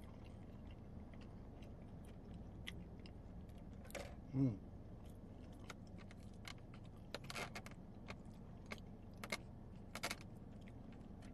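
Plastic fork and knife clicking and scraping against a styrofoam takeout container while cutting into a wet burrito, a scatter of short sharp clicks that bunch up past the middle. A low steady hum lies underneath.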